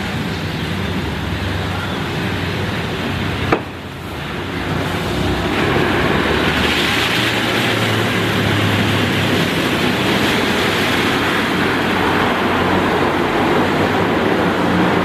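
Brush-wash stage of an Aquarama Stargate S7 rollover car wash: its rotating brushes scrub against a car amid water spray, over a low steady motor hum. A sharp click comes about three and a half seconds in, the sound dips briefly, then grows louder and stays steady.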